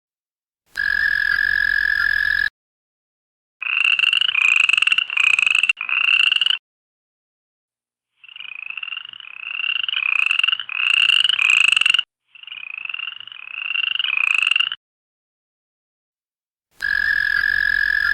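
Toad calls: a steady held trill, then three runs of short croaks, each rising slightly in pitch, with about four to six croaks per run. The held trill returns near the end.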